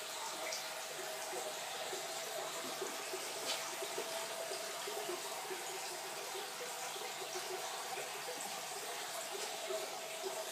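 Aquarium filter water running steadily into the fish tank, with a faint steady hum underneath.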